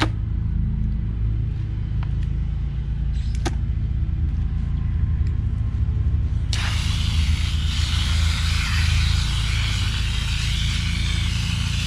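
Garden hose pistol-grip nozzle spraying water onto a split mud crab in a metal colander, a steady hiss that starts about halfway through. Beneath it runs a steady low rumble, and a single sharp crack comes about three and a half seconds in.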